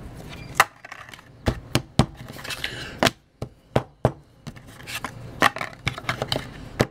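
Trading cards being handled and set down on a desk: a string of sharp taps and clicks at uneven intervals, with short papery rustles as cards slide against each other.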